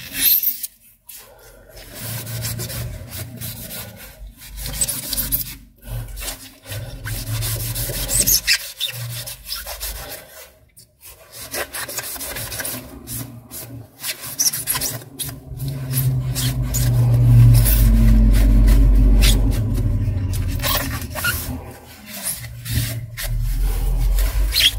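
Tissue rubbed up and down the metal-backed cleaning blade of a Canon 337 toner cartridge, wiping off waste toner: a continuous scratchy rubbing with short scrapes, growing louder and heavier for a few seconds after the middle.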